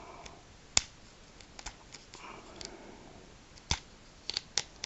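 Fingers working the small plastic parts of a Micro Galaxy Squadron X-Wing toy, trying to open it. There is a sharp click about a second in and a cluster of clicks near the end, with fainter taps and scrapes between.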